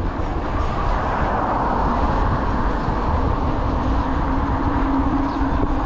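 An 8000 W e-bike being ridden: a steady rush of wind and tyre noise, with a low steady hum coming in about halfway. The newly fitted 203 mm disc brakes are still rubbing, which the rider says sounds terrible.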